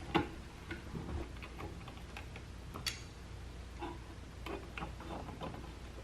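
Faint, irregular light clicks and ticks of small hand tools working the ends of electrical wire, bending loops to go under a light switch's terminal screws, with one sharper click about three seconds in.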